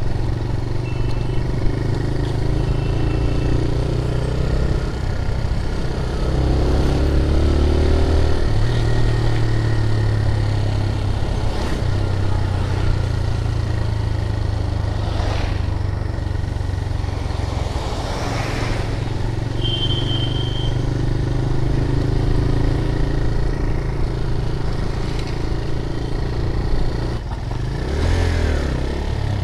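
TVS Raider 125's single-cylinder engine running under way on the motorcycle, its note shifting up and down with the throttle. A short high tone sounds about twenty seconds in.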